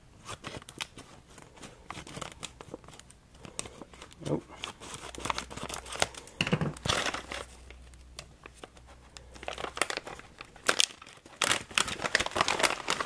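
A silver-grey plastic packaging bag crinkling and rustling as it is cut with scissors and pulled open by hand, in irregular bursts of crackle with a few louder clusters near the middle and the end.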